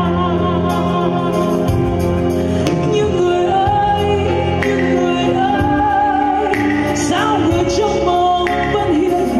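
Live music: a woman singing into a microphone, backed by a band on drums, electric bass, electric guitar and keyboard.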